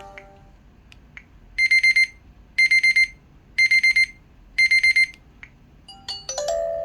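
LG Wine Smart phone's alarm tone playing through its speaker: a digital alarm-clock beep, four quick groups of rapid high pips about a second apart. Near the end a chiming ringtone melody begins.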